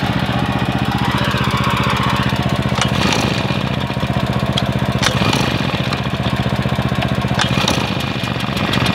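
Husqvarna 150BT backpack leaf blower's 50.2cc two-stroke engine idling steadily just after starting, with a few light knocks from handling the machine.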